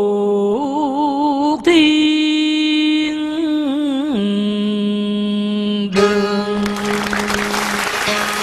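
A male cải lương singer holds long, wavering sung notes without words. The pitch steps up about a second and a half in and drops back about four seconds in.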